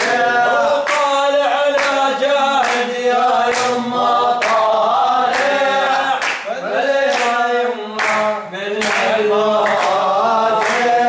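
Group of men singing an Arabic chant together, unaccompanied, with hand claps on the beat about once a second.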